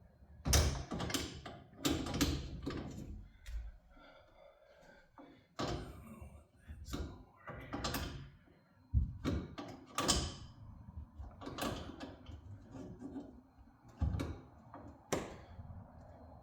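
Irregular knocks, clunks and short rattles of tools and hardware being handled at a garage door opener's chain rail, about a dozen separate strikes.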